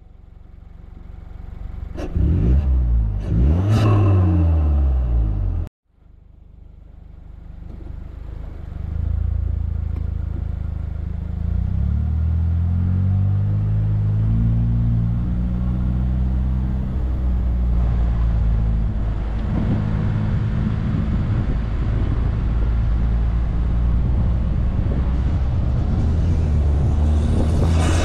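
Mazda3 Turbo's turbocharged 2.5-litre four-cylinder, fitted with an aftermarket exhaust and short ram intake, revved twice while standing, its note rising and falling each time, then cutting off suddenly. It starts up again and the car pulls away, the engine note climbing under acceleration before settling into a steady low drone, with a rush of air near the end.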